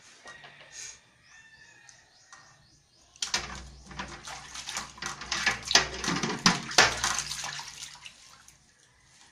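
Small hands sloshing and splashing soapy water in a metal basin while a plastic bowl is scrubbed, starting about three seconds in and lasting about five seconds.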